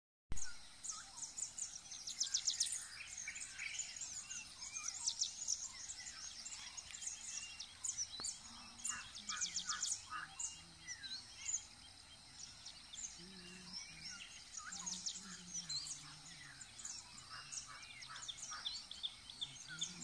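Several songbirds singing at once, a dawn chorus of overlapping chirps, whistles and fast rattling trills.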